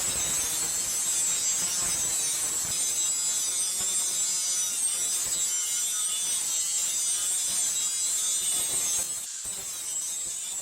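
Steel being ground on a power grinder: a continuous, steady, high-pitched grinding hiss that breaks off briefly near the end and then resumes a little quieter.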